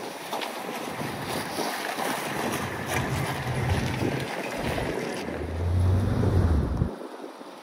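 Ford diesel V8 pickup engine (6.9 IDI) revving as the truck slides on ice, with wind rushing across the microphone. The engine swells twice, loudest about six seconds in as the truck comes toward the camera, then drops away suddenly near the end.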